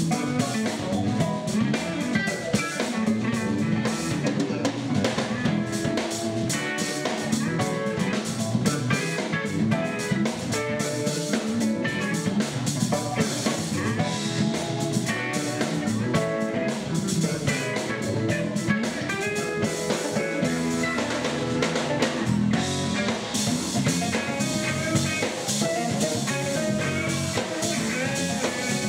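Live rock band playing: electric guitars, electric bass, keyboard and drum kit.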